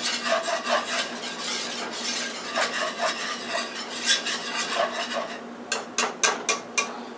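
A utensil stirring and scraping a thick margarine-and-flour roux around a metal frying pan, a steady scraping. Near the end come about five quick, sharp taps.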